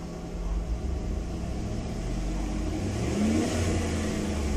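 Chevrolet Tahoe / GMC Yukon V8 engine revved gradually up from idle, running louder and higher as the rpm climbs. The rev is part of an oil pressure check: the pressure, judged somewhat low at idle, rises with engine speed.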